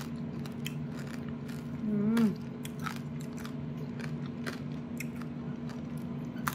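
Crispy roast pork belly being bitten and chewed, with irregular crunches of the crackling skin. A short 'mmm' from the eater comes about two seconds in and is the loudest moment.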